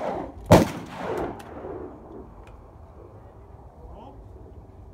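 A single shotgun shot fired at a clay target about half a second in, sharp and loud, trailing off over about a second.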